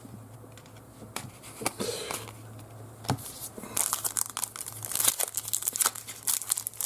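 Foil wrapper of a trading card pack crinkling and tearing. A few scattered crackles at first, turning to dense crinkling from about halfway in.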